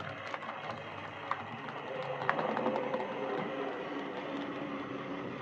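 Hornby Class 14xx OO gauge model tank locomotive running along the track: the steady whine of its small electric motor and gears, with light clicks from the wheels on the rails. It runs smoothly, with no sign of the reported drumming noise.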